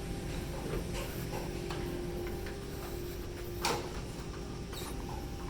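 Scattered light clicks and taps of sneeze guard parts being handled and fitted together, with one sharper click about two-thirds of the way in and a brief squeak just after, over a steady hum.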